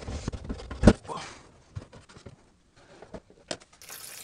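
Plastic reverse osmosis filter housing being unscrewed and handled: scattered clicks and knocks, with one sharp knock about a second in. Near the end, water starts to pour out of the housing into a basin.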